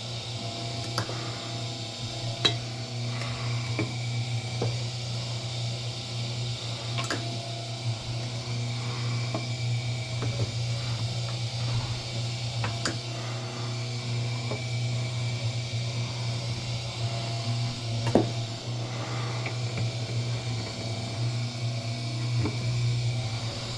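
Wire stripping machine running with a steady low hum while copper wire is fed through it, with scattered sharp clicks and ticks from the wire and blades.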